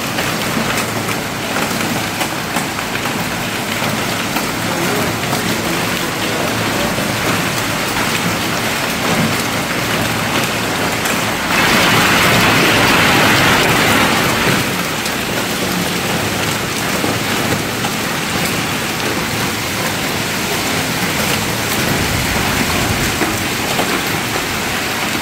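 Hail pelting a courtyard's walls, ledges and roofs: a dense, steady patter of countless small impacts, louder for about three seconds near the middle.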